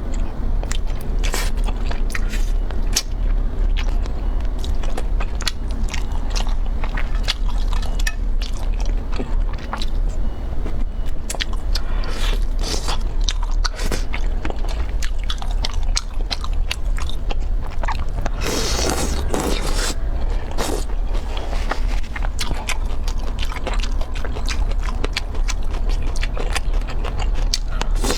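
Close-miked eating: a person biting and chewing food, with frequent crisp crunches and crackles and a steady low hum underneath. A louder burst of crunching comes about two-thirds of the way through.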